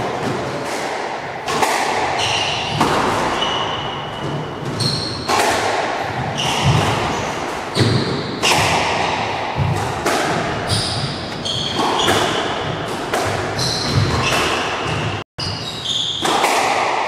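A squash rally: the ball cracking off the rackets and walls about once a second, with short high squeaks of court shoes on the wooden floor, echoing in the enclosed court.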